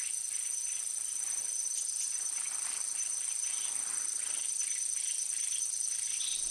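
A steady, high-pitched chorus of insects, two shrill pitches held without a break, with faint soft rustling underneath.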